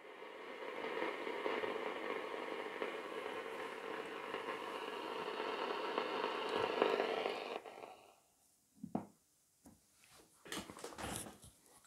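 Pye P114BQ valve radio giving a steady hiss of static from its loudspeaker, which cuts off abruptly about seven and a half seconds in. A few faint clicks and knocks follow as the case is handled and its lid closed.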